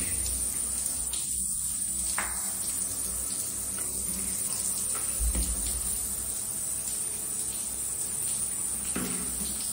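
Hands rubbing and lathering a wet golden retriever puppy's fur, soft wet rubbing with scattered small clicks, over a steady high-pitched hiss.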